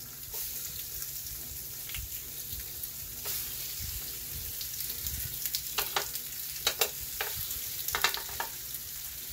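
Seasoned salmon fillets sizzling in garlic butter on a hot electric indoor grill, a steady high hiss. A few sharp clicks come in the second half, a cluster around two-thirds of the way through and another near the end.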